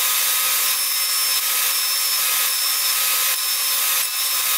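Table saw running steadily, its blade cutting a wooden piece in shallow passes to clear a groove for a half-lap joint. A faint high whistle comes and goes over the steady noise of the blade.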